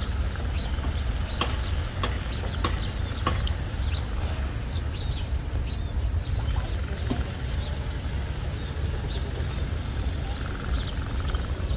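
Short bird chirps scattered throughout, over a steady low rumble. A few sharp clicks come in the first few seconds, and a thin, steady high tone drops out for a moment near the middle.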